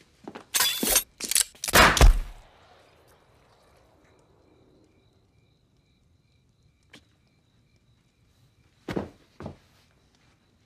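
A close-range pistol shot from a small concealed derringer: a cluster of sharp cracks ending in the loudest report about two seconds in, which rings out briefly in the room. A faint pulsing high tone lingers afterwards, and two sharp thuds come about nine seconds in.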